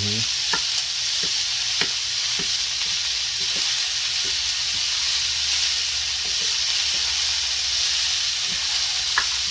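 Food fresh from the freezer sizzling steadily in a hot frying pan as it is stirred, with a few light taps of the utensil against the pan.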